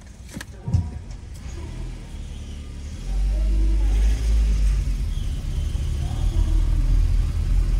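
Car's engine and tyres rumbling, heard from inside the car as it pulls away from a parking-garage gate onto a concrete ramp. The rumble grows louder and deeper about three seconds in. A single sharp knock comes just under a second in.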